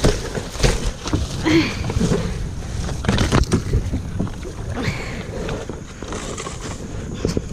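Kayak paddling: paddle blades splashing and knocking in irregular strokes, with wind rumbling on the microphone and a couple of brief voice sounds.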